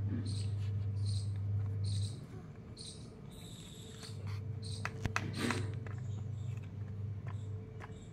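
Outdoor garden sound: a steady low hum that fades out about two seconds in and returns about four seconds in. Short high chirps repeat about twice a second over the first three seconds, and a few light clicks come about five seconds in.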